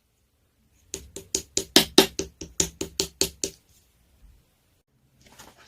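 Clear slime being pressed and squeezed, giving a quick run of about a dozen sharp clicking pops, about five a second, then a short soft squish near the end.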